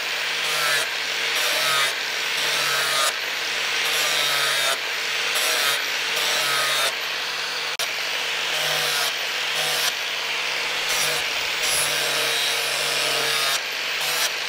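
Angle grinder with a flap disc grinding along a curved steel machete blade, its motor running steadily while the grinding rises and falls in repeated passes about once a second.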